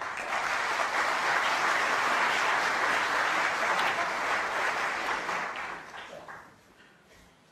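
Snooker audience applauding a shot: the clapping starts all at once and dies away after about six seconds.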